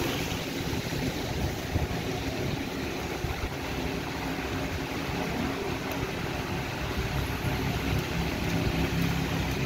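A motor vehicle's engine running steadily at low speed, a constant low hum with no change in pace.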